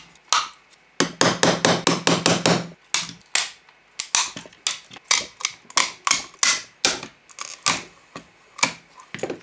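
Side cutters snipping and cracking through the hard plastic housing of an airbag control module's connector. A quick run of cracks comes about a second in, followed by a long series of sharp single snaps, roughly two a second.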